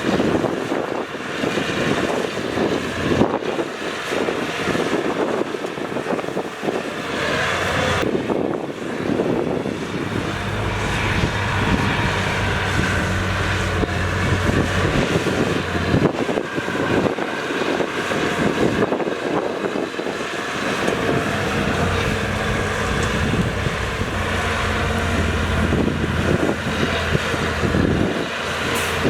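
Heavy diesel earthmoving machinery working: dump truck and bulldozer engines running under load, with a steady low engine drone that grows stronger about a third of the way in.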